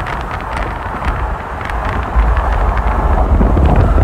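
Moving vehicle: a steady low rumble with wind buffeting the microphone and frequent small clicks and rattles, the rumble growing louder about two seconds in.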